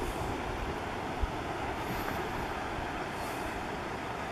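Wind buffeting the camera microphone: a steady rushing noise with an uneven low rumble and one brief thump about a second in.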